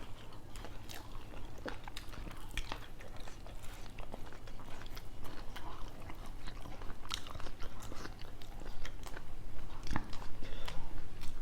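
People chewing and biting food close to the microphone, with irregular small crunches and mouth clicks.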